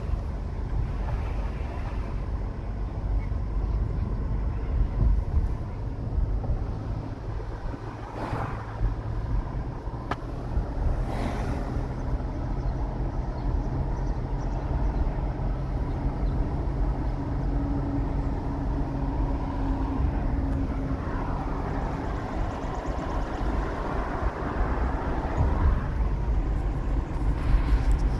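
Car in motion heard from inside the cabin: a steady low rumble of engine and tyre road noise, with a few brief swells of noise and a steady hum for a few seconds past the middle.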